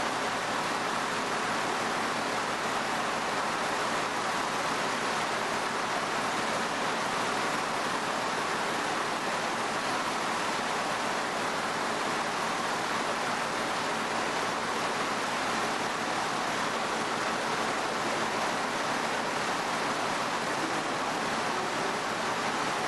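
Steady, even rushing noise with no distinct knocks, clanks or voices.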